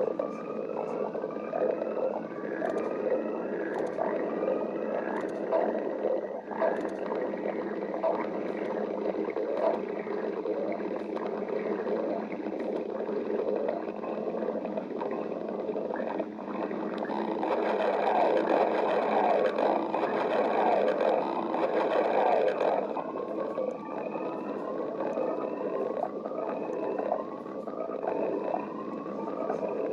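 Human stomach growling and gurgling without a break. Short rising squeaky gurgles repeat about twice a second near the start and again near the end. The gurgling grows louder and busier for several seconds a little past the middle.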